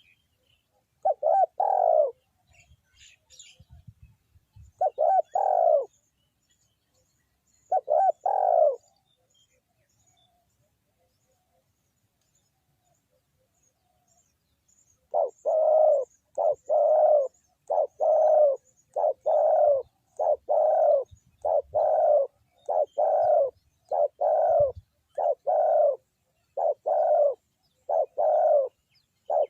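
Spotted dove cooing: three calls a few seconds apart, then after a pause of several seconds a steady run of about fifteen calls, a little under one a second.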